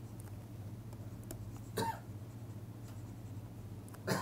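Pen stylus scratching and tapping on a tablet screen while handwriting, over a steady low hum. Two short, louder sounds come about two seconds in and again near the end.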